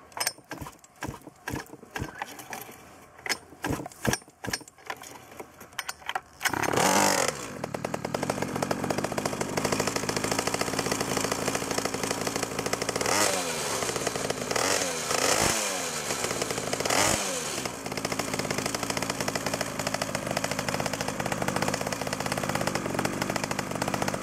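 Two-stroke pocket bike engine pull-started with the choke on: several rattling pulls of the recoil starter, then it catches about six and a half seconds in and keeps running. It is revved three times around the middle and idles a little high.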